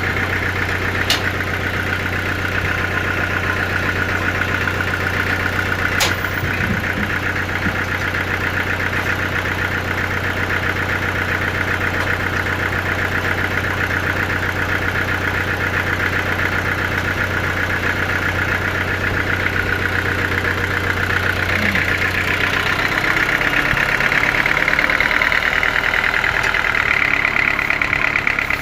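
Sawmill machinery running steadily, with a low hum and a higher buzzing tone. About three-quarters of the way in the low hum drops away and the buzz grows louder. Two sharp clicks come early, about five seconds apart.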